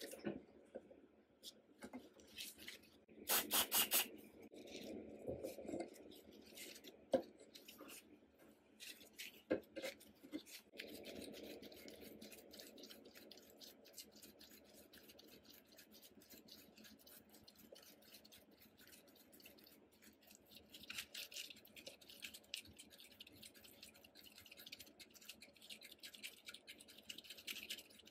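Rusty steel parts of an antique sewing machine's head being worked with pliers and gloved fingers: small scattered metal clicks and scrapes, with a quick run of loud clicks a little over three seconds in. Near the end comes a steadier scratchy rubbing as the gloved fingers twist the part.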